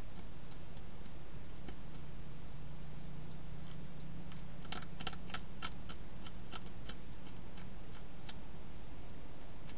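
Wild hedgehog crunching dry food: irregular sharp clicks, thickest about halfway through, over a steady low hum and hiss.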